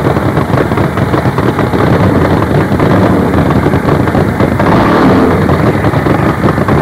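Twin-engine, nitro-burning Top Fuel Harley-Davidson V-twin drag bikes running loud, with a rapid, ragged staccato firing.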